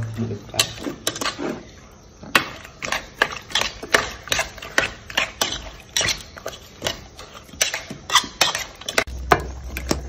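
A hand mixes raw fish pieces and sliced shallots in an aluminium pot, giving repeated uneven clinks and knocks against the metal, several a second. About nine seconds in, a low steady rumble starts.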